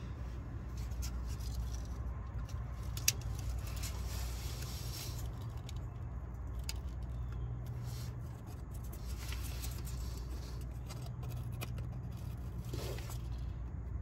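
Small clicks and light scratching from fingers working at the breaker points of an open distributor on a 1937 Plymouth flathead six, with one sharper click about three seconds in. A steady low hum runs underneath.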